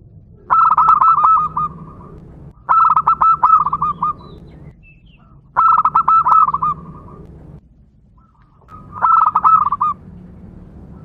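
Zebra dove singing its rapid, rolling coo song in four phrases a couple of seconds apart, each about a second long, over a faint low hum.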